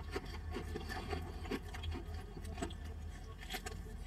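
Quiet car-cabin background: a low steady hum with faint, scattered small ticks and rustles.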